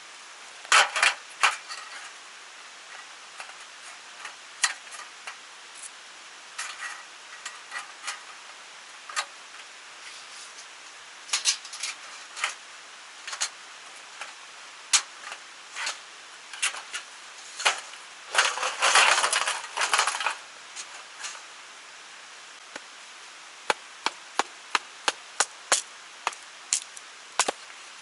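Irregular sharp knocks and taps of hand-tool work on wood or metal, with a denser run of scraping and knocking about two-thirds of the way through.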